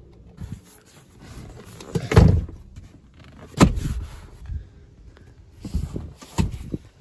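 Folding rear seat of a 2003 GMC Envoy being raised back upright: a heavy clunk about two seconds in, a sharp click a second and a half later, then a couple of lighter knocks near the end.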